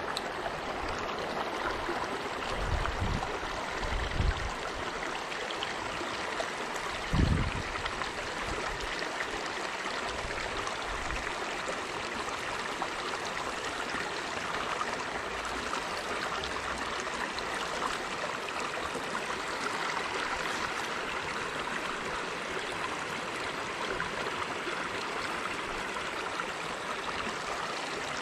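Shallow river water flowing steadily over the stones, a continuous rushing babble. A few dull thumps sound in the first several seconds, the loudest one about seven seconds in.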